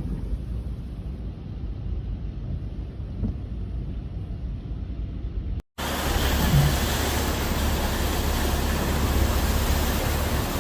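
Steady rushing noise of a heavy rainstorm with a deep rumble, muffled at first, then cut off briefly a little over halfway through and resuming louder and brighter.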